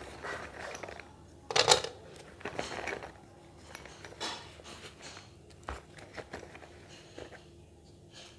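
Slate pencils crunching and clicking in short separate bursts, the loudest about a second and a half in.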